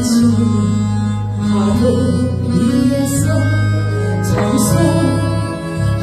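A woman singing a Korean gospel praise song into a microphone over amplified instrumental accompaniment with a steady bass line.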